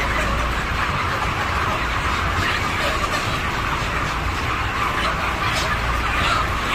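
A flock of five-week-old broiler chickens clucking and peeping all at once in a dense, steady chatter, over a low steady hum.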